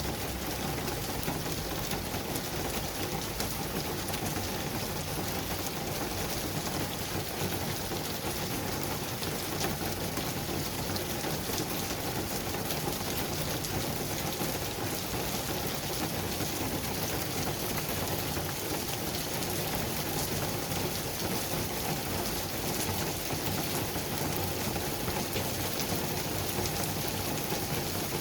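Steady city traffic ambience: an even, unbroken hiss with a faint low hum beneath it.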